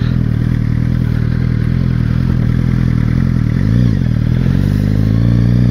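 Suzuki GSX-R 600's inline-four engine running at low revs. There is a quick throttle blip about two-thirds in, and the revs climb near the end.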